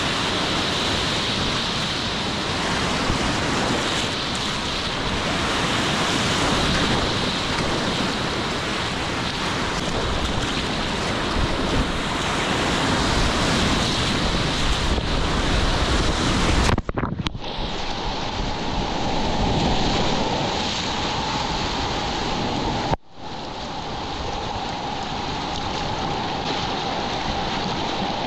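Steady rush of whitewater rapids with wind on the microphone. It breaks off for an instant twice, two-thirds and three-quarters of the way through, and sounds a little duller after the first break.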